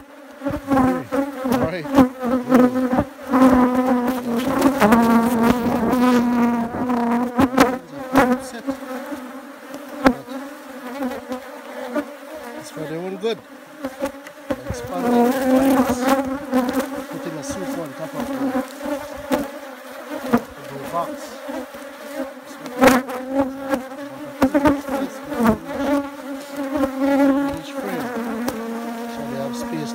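Honeybees buzzing close around the microphone, a steady hum that swells and wavers in pitch as individual bees fly past. A few sharp knocks of a metal hive tool prying at the wooden frame top bars.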